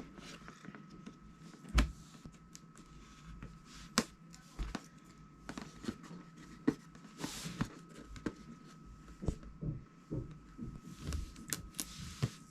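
Product boxes and plastic packaging being handled: scattered light knocks, taps and rustling, with a brief rustle about seven seconds in. A faint steady high whine runs underneath.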